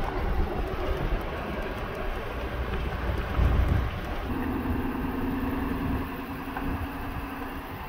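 Thor Magnitude Class C motorhome under way, its engine and tyres giving a steady low road rumble. A steady droning hum joins in about four seconds in.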